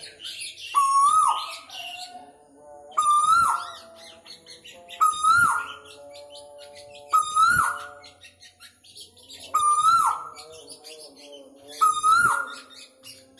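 Male Asian koel calling, a rising note repeated six times about every two seconds, each call breaking off sharply. Fainter high twittering from other birds and some steady lower tones run underneath.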